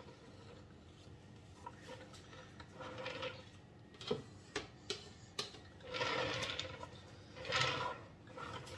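Handling noises: several sharp clicks and knocks of a plastic cake scraper and tools on a wooden counter, and two brief rubbing, sliding noises about six and seven and a half seconds in as a silicone baking mat is shifted on a cake turntable.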